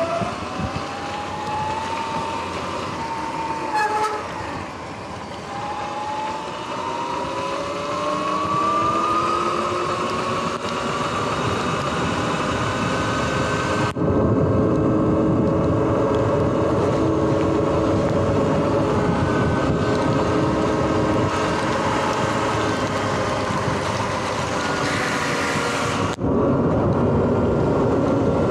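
Sur-Ron X electric dirt bike's motor and drivetrain whining, rising in pitch as it accelerates away, easing briefly, climbing again and then holding steady at speed. Under it is a constant rush of wind and tyres on wet pavement. The sound drops out for an instant twice.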